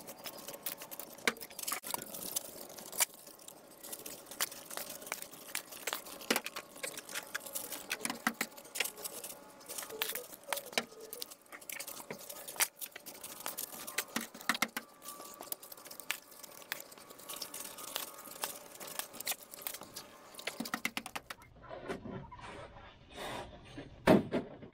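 Shovel digging and scraping into soil, with dirt pattering into a plastic five-gallon bucket: a dense run of scrapes and clicks that thins out about 21 seconds in.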